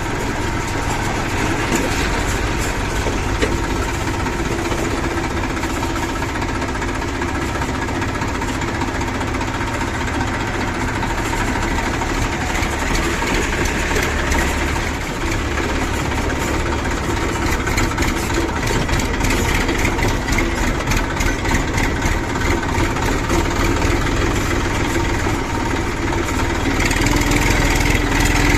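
Diesel engines of a JCB 3DX backhoe loader and farm tractors running steadily, rattling in the second half and getting louder near the end.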